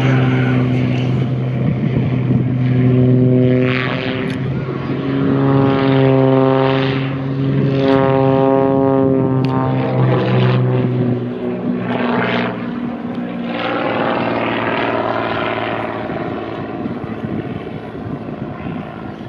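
Single-engine propeller aerobatic plane flying a display overhead, its engine and propeller drone shifting up and down in pitch as it climbs and turns, growing fainter over the last few seconds.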